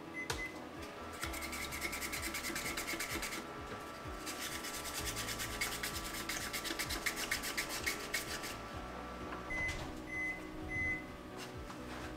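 Kitchen utensil scraping rapidly and rhythmically against a bowl or board in two long runs, over a steady appliance hum that stops near the end. Three short high electronic beeps follow, like a microwave oven signalling it has finished.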